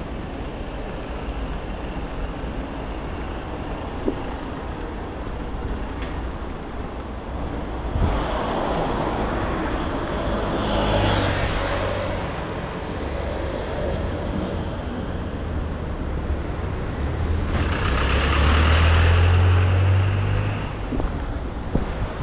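City street traffic: a steady wash of passing vehicles, with one vehicle passing louder about a third of the way in and a heavier one with a deep engine hum passing near the end.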